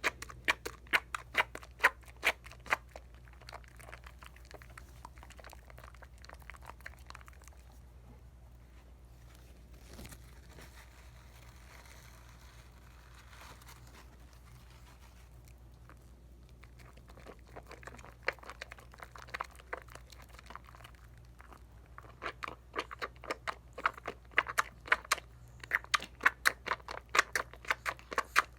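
Soap lather from Dial coconut bar soap being worked between wet hands: quick wet squishing and crackling of suds. It comes in dense bursts at the start and again through the second half, softer in between.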